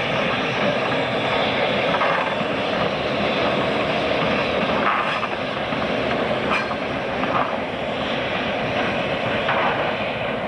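EMD GP9 diesel locomotive's engine running steadily as the unit rolls past, with a few faint clicks scattered through.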